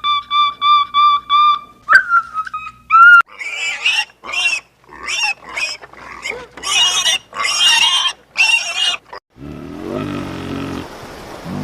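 An animal's repeated loud, high squealing calls, each about a second long, preceded by a quick run of clear, evenly repeated high notes and followed near the end by a lower, rougher call.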